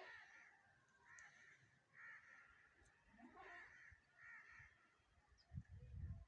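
A bird repeating short, harsh, arched calls in small groups about once a second. Near the end a low rumble of wind or handling on the microphone is the loudest sound.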